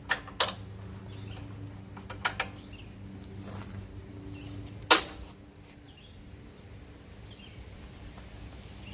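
Sharp metal clicks and taps from hand work on the zero-turn mower's hydrostatic drive valves under the frame: two right at the start, two more about two seconds in, and the loudest single click about five seconds in, over a faint low hum.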